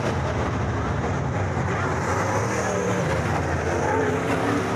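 Several dirt-track modified race cars racing around the oval together, their V8 engines merging into one steady, loud mass of engine noise.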